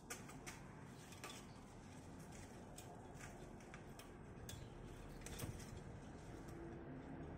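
Faint, irregular clicks and ticks, about a dozen, over a light background hiss, from weeds being pulled by hand out of cracks in concrete.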